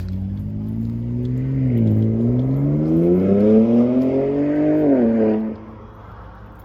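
A motor vehicle's engine accelerating. Its pitch rises, drops briefly about two seconds in as if changing gear, climbs again, then falls away and cuts off sharply after about five seconds, leaving a low steady hum.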